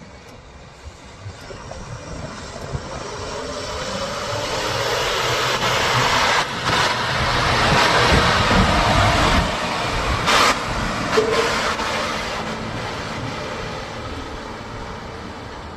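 A heavy vehicle passing by: a broad mechanical noise that grows steadily louder to a peak about halfway through, then fades away.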